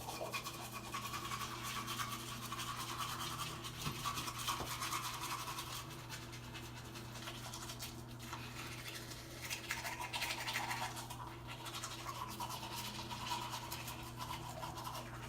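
Several people brushing their teeth at once: the steady scratchy scrubbing of toothbrush bristles on teeth, with a steady low hum behind it.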